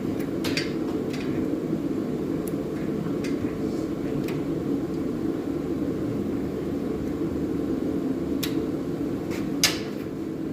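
A forge running steadily, a continuous rush of fire and air, with a few light clicks and one sharper click near the end.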